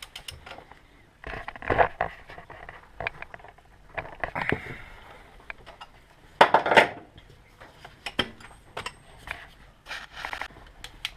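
Metal hand tools clinking, knocking and scraping in irregular bursts while a reversing light switch is fitted into the top of a manual gearbox.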